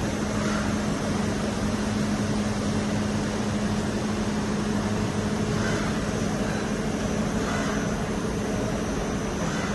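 CB Ferrari A17 five-axis machining centre running under power: a steady mechanical hum with one constant low tone over an even whirring noise.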